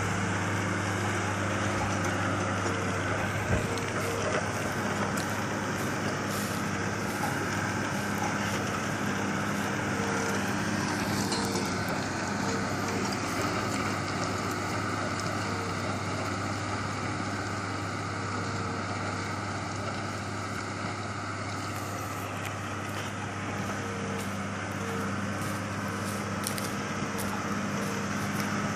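New Holland M135 tractor's diesel engine running steadily under heavy load at about 1900 rpm while dragging a single-furrow deep plough 60–70 cm through the ground at walking pace.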